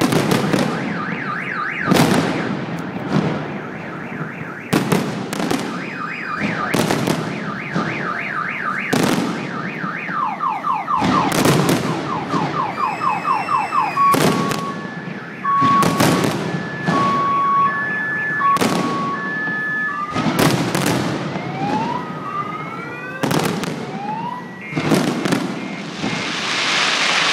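Fireworks salute going off, a sharp boom every second or two, while car alarms wail in warbling and stepping patterns and beep between the bangs. Near the end, a crackling shower of sparks.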